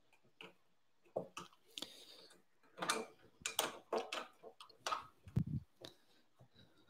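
Irregular sharp metal clicks and rattles of a hex key and screws working on an Ender 6 3D printer's aluminium extrusion frame, with a dull knock about five seconds in.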